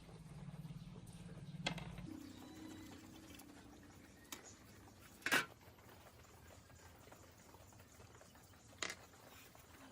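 A faint low hum that stops about two seconds in, then a few sharp clicks and knocks, the loudest about five seconds in: small hard parts or tools being handled.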